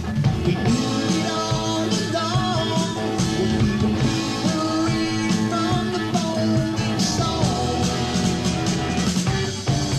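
Rock music played from a vinyl record: a full band over a steady beat, with a lead line that bends and glides in pitch.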